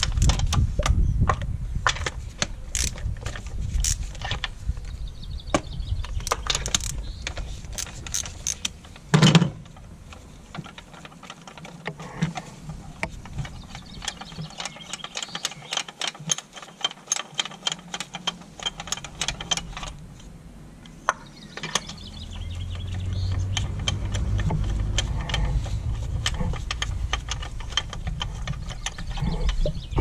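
Ratchet wrench clicking in quick runs as spark plugs are loosened and unscrewed from a three-cylinder engine's cylinder head, with a loud knock about nine seconds in and tool-handling clatter.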